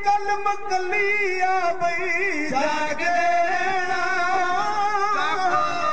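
A man singing a slow devotional melody in long held notes with wavering ornaments.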